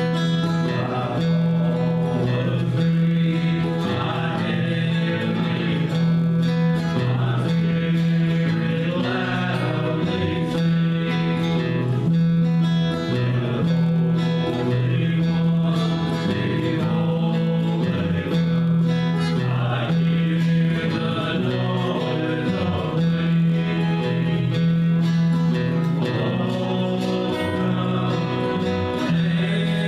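A gospel song performed live by a men's vocal group singing to acoustic guitar accompaniment, with a steady bass line underneath.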